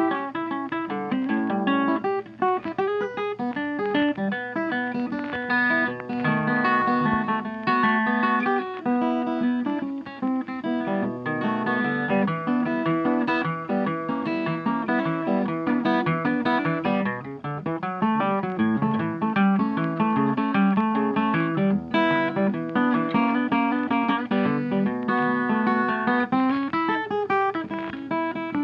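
Background music: a blues track led by plucked guitar with a steady rhythm.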